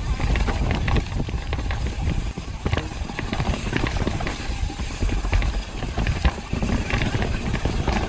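Mountain bike descending a rough downhill trail: wind buffeting the camera's microphone and tyres running over dirt, with frequent clicks and rattles from the chain and frame over bumps.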